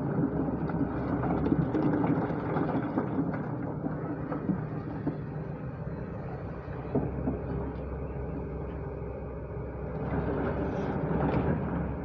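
JCB digger's diesel engine running steadily under load, with occasional short knocks and clanks.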